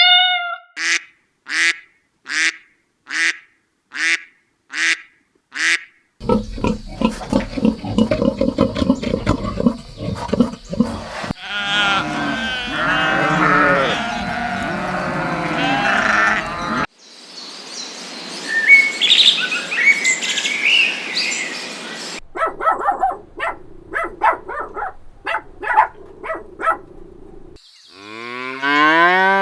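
A string of different animal calls cut one after another: first a run of short calls about one every 0.7 seconds, then several denser, noisier clips of animal voices, then more short repeated calls, and near the end a low call rising in pitch.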